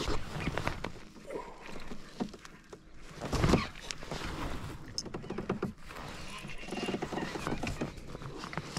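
Baitcasting reel being wound against a hooked bass, with many short clicks and knocks and one loud thump about three and a half seconds in.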